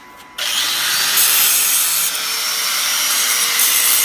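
Angle grinder cutting into the steel bumper: a harsh, loud grinding starts about half a second in and stops abruptly at the end, with the motor's hum rising in pitch beneath it.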